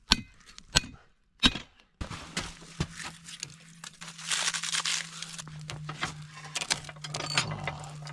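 Charcoal chunks clinking sharply three times, then, about two seconds in, the forge's blower fan starts up with a steady hum and a rush of air, while the burning charcoal crackles with small pops.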